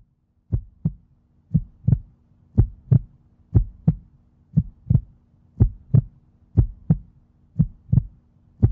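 Heartbeat sound effect: a double thump, lub-dub, repeating about once a second, over a faint steady low hum.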